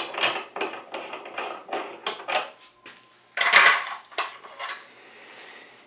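Steel decapping and resizing die being unscrewed by hand from a reloading press, a run of small metallic clicks and rattles. About three and a half seconds in comes a louder clatter of metal dies being handled in a plastic tray.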